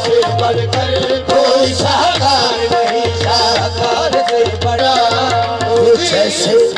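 Qawwali music between sung verses: harmoniums hold a drone and play the ornamented melody over a steady hand-drum rhythm.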